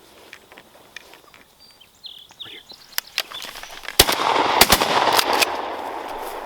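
Shotguns fired at ducks: a couple of sharp reports about three seconds in, then a rapid volley of about five loud blasts within a second and a half, the sound trailing off afterwards.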